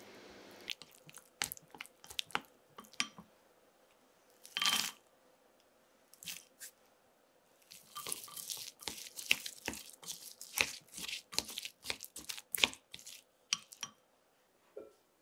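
Irregular series of crisp crunches and clicks from kitchen work. The strokes are sparse at first, with one longer crunch about five seconds in, then come as a denser run in the second half.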